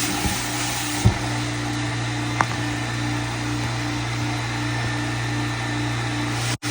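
Carpet cleaning extraction machine running: a steady drone and hum with a tone that pulses about twice a second. Two short knocks sound about one and two and a half seconds in, and the sound cuts out briefly near the end.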